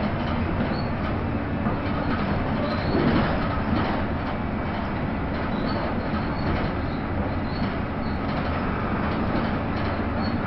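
Interior noise of a Jelcz 120M city bus driving at a steady speed: a constant low engine drone under tyre and road noise, with short faint high squeaks here and there.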